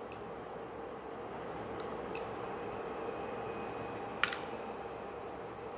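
Steady fan hum, with a few light clinks of a metal spoon against a glass bowl and pan as sauce is spooned out, the sharpest about four seconds in.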